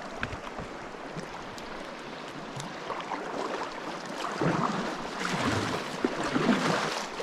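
Kayak being paddled on a creek: paddle strokes and water splashing and rushing around the boat, louder from about four seconds in.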